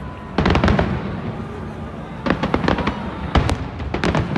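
Aerial fireworks bursting: a loud bang about half a second in, then a rapid cluster of sharp cracks and bangs from about two seconds on.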